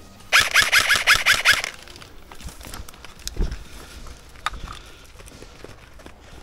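Airsoft electric rifle firing a quick string of about eight shots, roughly six a second, lasting a little over a second. A couple of single knocks follow.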